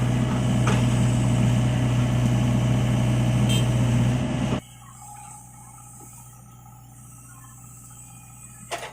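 LiuGong mini excavator engine running steadily with a strong low hum, stopping suddenly about halfway through and leaving only a faint steady hum.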